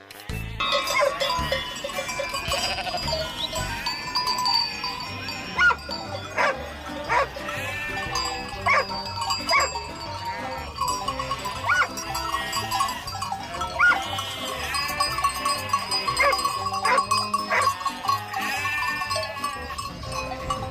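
A flock of livestock bleating over and over, with bells ringing among them.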